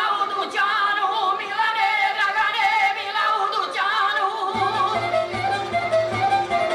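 Women singing a traditional folk song into a microphone in wavering, ornamented voices. About four and a half seconds in, a folk string band with a plucked long-necked lute comes in under the singing with a steady low beat.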